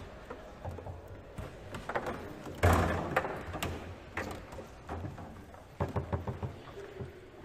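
Table football in play on a Leonhart foosball table: sharp knocks of the ball being struck and the rods clacking against the table, with one loud hit about two and a half seconds in and a quick run of clacks near the end.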